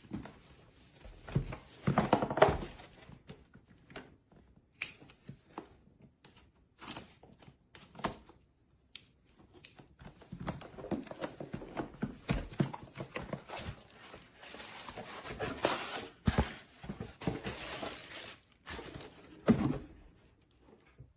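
Irregular handling noises: rustling and crinkling with tearing sounds and scattered knocks, loudest about two seconds in and again near the end.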